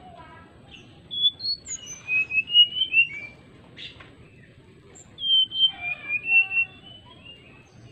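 Brown-chested jungle flycatcher singing: two phrases of clear whistled notes, the second starting about two seconds after the first ends.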